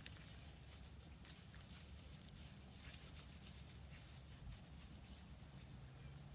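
Near silence, with faint footsteps in snow and one sharper click about a second in.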